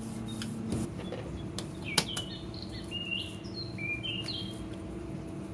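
Hands working oiled parotta dough on a counter, with a few sharp taps, the loudest about two seconds in, over a steady hum. Birds chirp several times in the middle.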